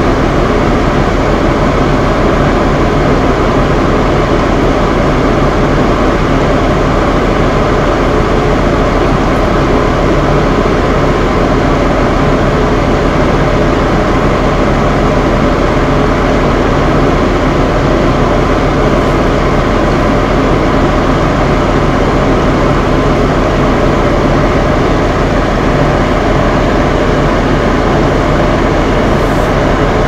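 Two bathroom fan heaters running together, a steady rushing blow with a constant low hum, mixed with the sound of rain.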